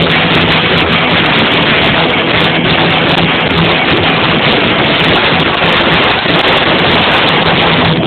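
Rock band playing live, electric guitar over drums, recorded so loud that the sound is overloaded into a dense distorted wash with a steady low note underneath.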